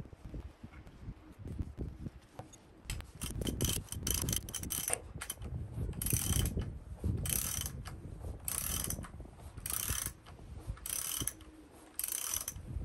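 Ratchet wrench clicking in short runs, one about every second and a quarter from about three seconds in, as it turns the bolt of a puller drawing a stuck cast iron valve guide out of a 1926 Fordson F engine block.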